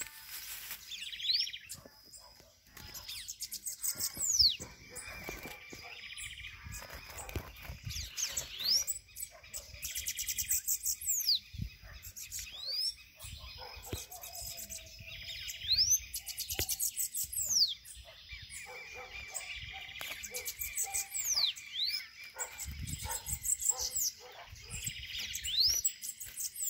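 Bananaquits (sibites) singing in a territorial fight: repeated high, thin, fast trills and quick sweeping whistled slurs, over and over with little pause. Low bumps of handling noise come and go underneath.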